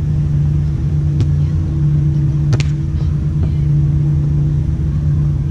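A volleyball being struck during a rally: a sharp slap about a second in, then two more in quick succession about halfway through. Under them runs a steady low hum and rumble.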